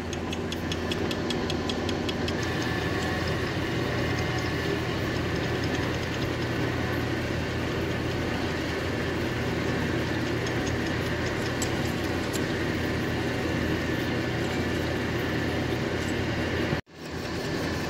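Small Grizzly lathe-mill combo running steadily, spinning a mild-steel bar in its three-jaw chuck while a twist drill in the tailstock bores into the end: a steady motor and gear hum. The sound cuts out for a moment near the end and comes straight back.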